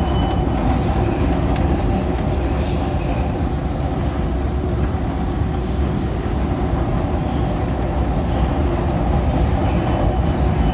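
Escalator running: a steady low mechanical drone and rumble with a faint constant hum, heard while riding it.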